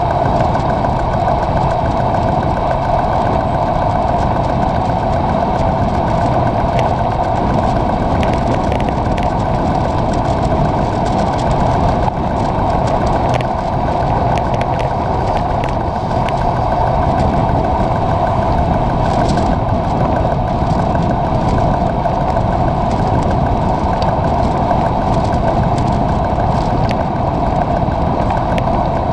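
Steady road and wind noise from a road bike riding on wet asphalt, picked up by a handlebar-mounted camera: a constant hum of tyres and rushing air, with scattered faint ticks.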